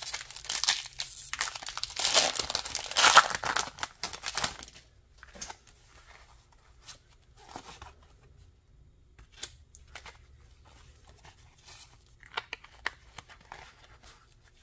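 A Pokémon TCG booster pack's foil wrapper being torn open and crinkled for about the first five seconds. After that come quieter, scattered clicks and rustles as the cards inside are handled.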